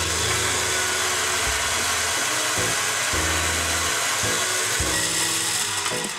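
Electric coffee grinder grinding beans: a steady motor whir with a gritty hiss that starts abruptly and cuts off near the end.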